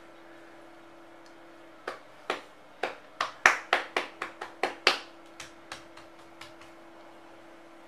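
Open palms patting down hard on a folded cloth laid on a tiled floor: a quick run of about fifteen sharp pats starting about two seconds in, loudest in the middle, then a few lighter ones trailing off.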